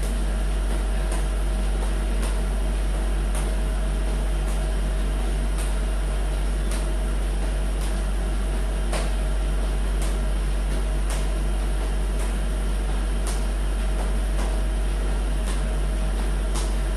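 A steady low hum with a soft knock about once a second from sneakers landing on a tiled floor during repeated squat jumps.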